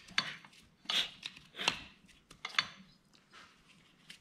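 Partly assembled 168F single-cylinder diesel being turned over slowly by hand to bring the piston back to top dead centre: a series of short scraping clicks from the moving internals, about one every second.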